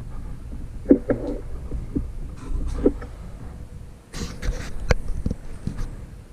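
Scattered clicks and knocks from hands working on the touchscreen unit's circuit boards and plastic housing, with the sharpest knocks about a second in and about five seconds in, over a steady low rumble.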